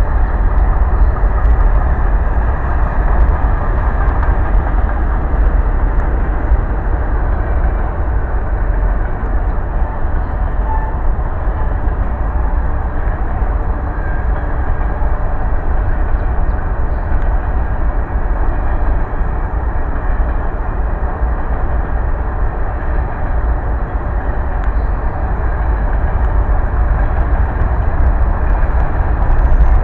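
Freight train cars rolling steadily past on the rails: a continuous, loud noise of steel wheels on track with a deep low rumble.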